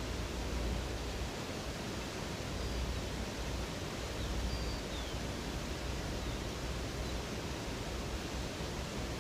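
Rushing water of a river or waterfall, a steady, dense hiss with a low rumble, and a few faint, short, high bird chirps now and then.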